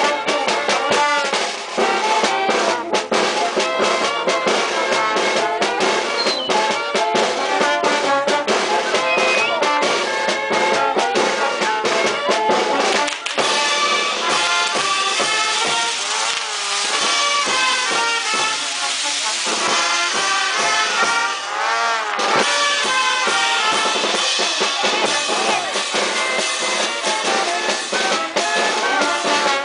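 Brass band music with drums playing throughout, with dense drum strokes under the horns.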